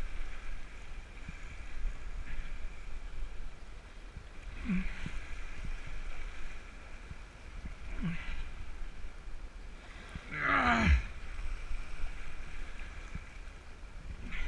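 Wind buffeting the microphone over washing sea water, with three short straining grunts from the angler fighting a fish on rod and reel. The loudest grunt comes about ten seconds in.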